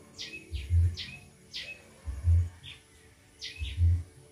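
Small birds chirping in quick, short falling notes, over a low, even thump that comes about every second and a half and is the loudest sound.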